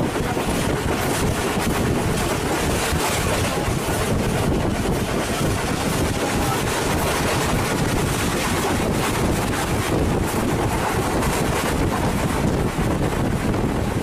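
Wind buffeting the microphone from the open window of a moving railcar, over the train's steady running noise.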